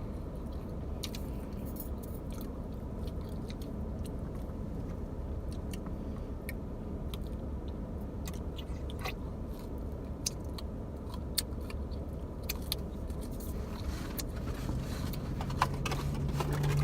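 Close-up chewing of pizza, with scattered small mouth clicks and smacks, over a steady low background hum.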